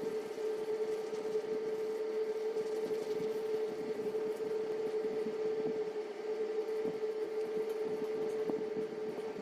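A steady hum at one unchanging pitch over a faint hiss.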